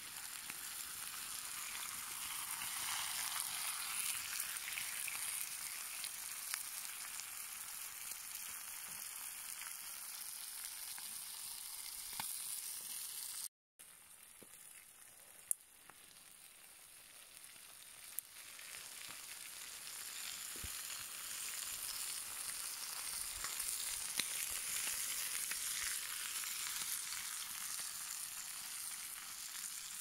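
Campfire burning with a steady hiss and scattered crackles and pops. The sound cuts out for a moment about halfway through, and a few sharper pops follow.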